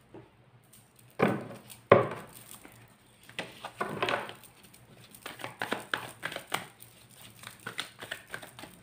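Tarot cards being shuffled and handled, a quick run of papery rustles and snaps. Two louder snaps come about a second in, then a denser patter of smaller ones.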